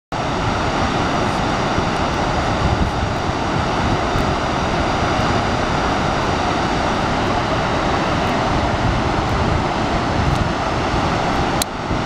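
Gullfoss waterfall: a loud, steady rush of a large volume of water plunging into the canyon.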